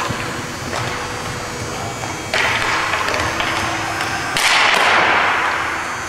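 Hockey play in an indoor rink: three sudden hissing scrapes and hits from skates and sticks, each fading over a second or two with the hall's echo, the loudest starting with a sharp crack about four and a half seconds in.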